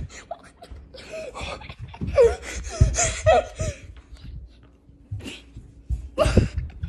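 A boy laughing in two bursts, a longer one a couple of seconds in and a short one near the end, over clicks and knocks from a phone being swung about in the hand.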